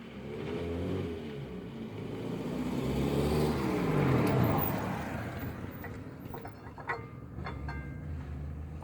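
A car going by: its engine and road noise build to a peak about four seconds in, then fade as the pitch drops. A few sharp clicks follow near the end.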